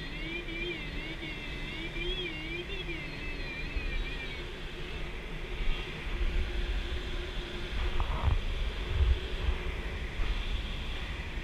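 K13 glider's audio variometer tone wavering up and down in pitch over the rush of airflow around the cockpit, the vario reading erratically. After about four seconds the tone settles and the air rush grows louder, with a couple of thumps near the end.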